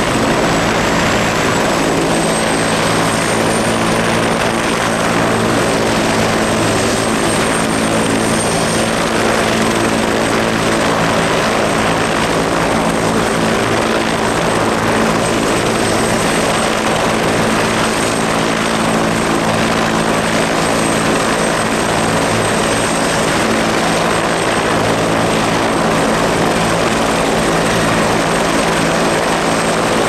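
Bell 412HP twin-turboshaft helicopter running on the ground with its rotors turning. A steady high turbine whine sits over an even lower hum from rotor and gearbox. The whine wavers slightly in pitch in the first few seconds, then holds.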